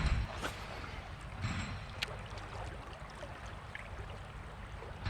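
Moving river water around a fishing kayak, with a few light clicks and knocks, one sharper click about two seconds in.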